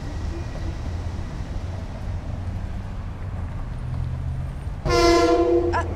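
Long Island Rail Road train arriving at the station: a steady low rumble, then the train's horn sounds once for about a second near the end.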